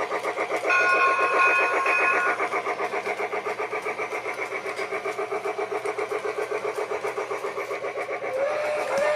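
Toy train running with a steady, rapid chugging sound, with a chord-like whistle held for about a second and a half near the start and another rising whistle tone near the end.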